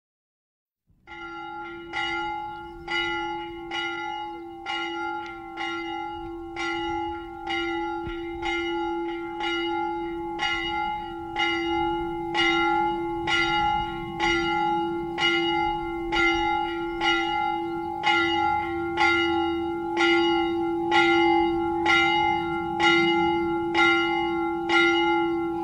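A single church bell tolling about once a second, starting about a second in, each stroke ringing on into the next so its hum never dies away.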